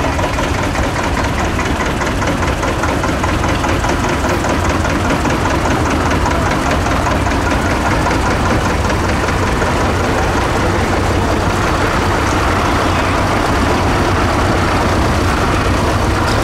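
Vintage farm tractors drive past one after another at low speed, their engines running steadily with a rapid, even beat of firing strokes.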